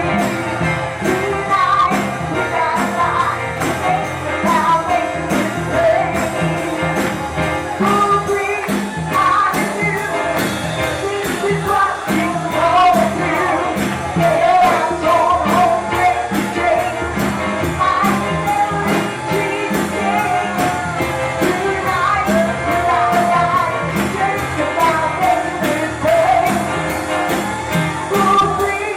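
Upbeat live worship music: singing over a band with a steady, fast beat.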